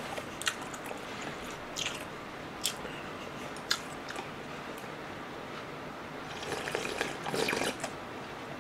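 Quiet eating sounds from a plastic bowl of Nagasaki champon noodle soup: a few light clicks in the first few seconds, then a stretch of slurping broth from the bowl's rim about two-thirds of the way through.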